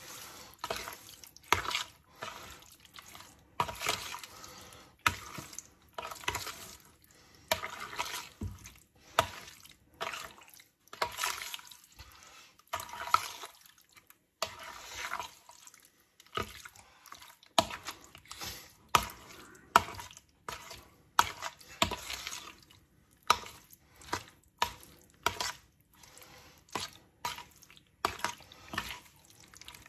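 A spoon stirring chicken pieces through a thick yogurt, black pepper and salt marinade in a plastic bowl: a steady run of short, wet stirring strokes, about one a second.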